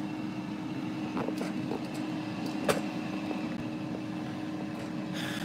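Ninja air fryer's fan running with a steady hum, heating at 390°F, with a few light handling clicks, one a little sharper in the middle.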